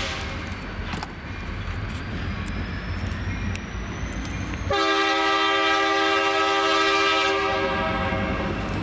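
Diesel locomotive air horn sounding a multi-note chord. The tail of one blast cuts off right at the start, and a second long blast of about two and a half seconds begins near five seconds in. Beneath it is the low rumble of a freight train with scattered sharp clicks of wheels over rail joints.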